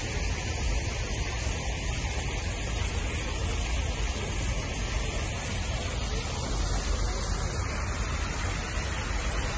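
Steady rushing splash of a large fountain's jets falling into the basin, over a low rumble of city traffic.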